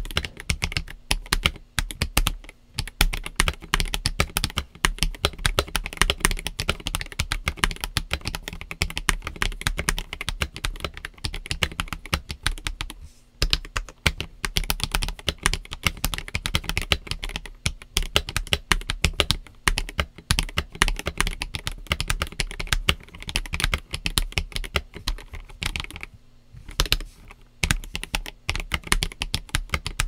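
Typing on a MintCaps YQ84 75% mechanical keyboard with Leobog Graywood V3 switches and MSA double-shot ABS keycaps: a quick, dense run of keystrokes with a few short pauses.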